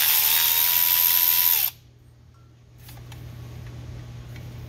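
Cordless power tool motor running with a high whine at a steady pitch, cutting off suddenly under two seconds in. A low steady hum and a few faint clicks follow.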